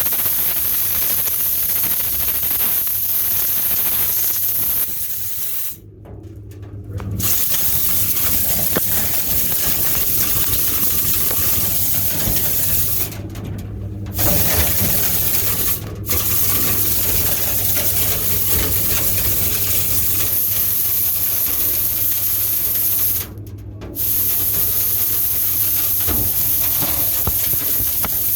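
Dryer vent cleaning equipment running with a loud, steady hiss over a low hum. It cuts out briefly four times and each time comes straight back on.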